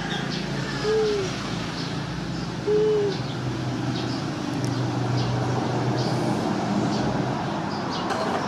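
Two short, soft hooting calls from an animal, almost two seconds apart, over a steady low hum.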